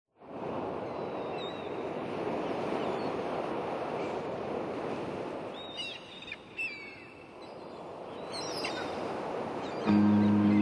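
Steady rushing noise, with a few short falling chirps about halfway through. Guitar music starts near the end.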